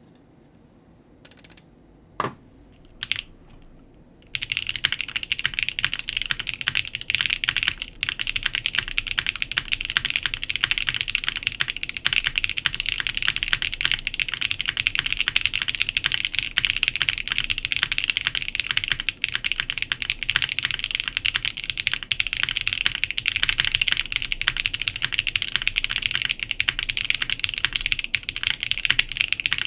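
Custom TKL mechanical keyboard with Geon Raptors MX Extreme switches on an aluminum plate being typed on. A few separate keystrokes in the first few seconds, then fast, continuous typing from about four seconds in.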